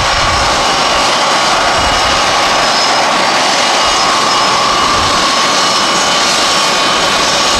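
Boeing C-17 Globemaster III's Pratt & Whitney F117 turbofan engines running steadily on the ground, a high whine over a loud rushing roar.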